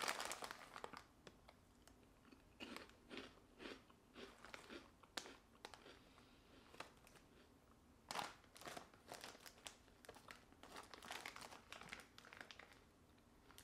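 Faint crunching of a person chewing crunchy protein puffs, in irregular bursts with short pauses between.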